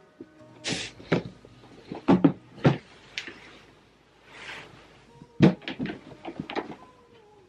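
Irregular knocks and clunks of a clear plastic storage box being handled on a wooden table, with soft rustling as a pile of fabric scrunchies is moved about.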